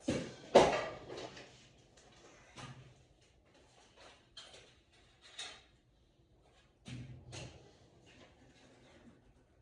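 Knocks and clunks of things being handled and set down: one sharp, loud knock about half a second in, then several lighter ones spread through the rest.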